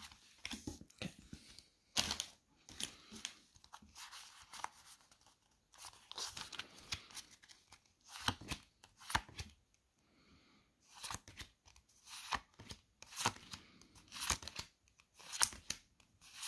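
Foil booster pack wrapper crinkling and tearing, and trading cards being handled: a run of short rustles and snaps with brief pauses between them.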